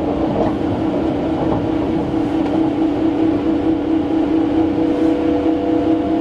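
Running noise of a 285-series electric sleeper train heard from inside a passenger compartment: a steady low rumble with an even, unchanging hum over it.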